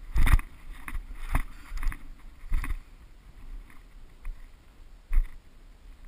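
Footsteps tramping through tall, clumpy grass, with thumps and rustles on a body-worn camera: several irregular heavy thuds, the loudest just after the start.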